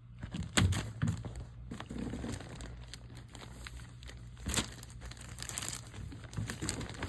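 Bag or wrapper crinkling and rustling as it is handled, with irregular sharp crackles and clicks.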